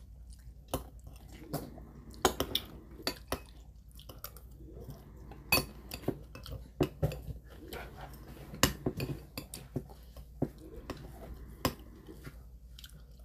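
Metal spoons clinking and scraping against stainless steel bowls in scattered, irregular sharp clinks, with chewing between them.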